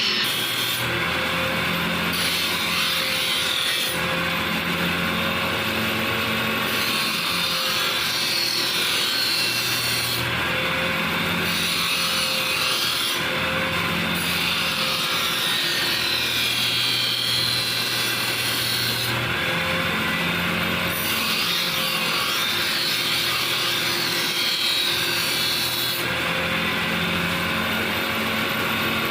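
Power tool running steadily on knife steel: a continuous abrasive noise with a faint steady hum underneath, its low end shifting every few seconds as the pressure on the work changes.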